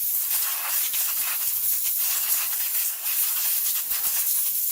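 Aerosol spray can giving an electrical connector one long continuous spray: a steady hiss that cuts off sharply.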